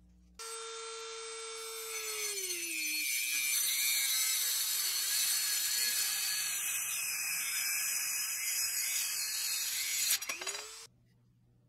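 Handheld rotary tool with an abrasive cutoff wheel cutting through a metal axle rod. The motor starts with a high whine, and its pitch drops as the wheel bites into the rod and a loud grinding hiss takes over. The whine rises again briefly just before the tool stops, near the end.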